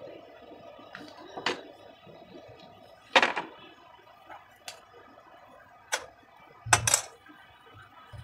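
A few separate clinks and knocks of kitchenware: a steel spoon against an aluminium pan of dough and a plastic plate being set down on the counter. The loudest knock comes about three seconds in, and two more close together come near the end.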